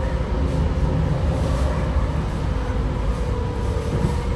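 TriMet MAX Siemens S70 light rail train running between stations, heard from inside the car: a steady low rumble of wheels on the track with a faint steady motor whine.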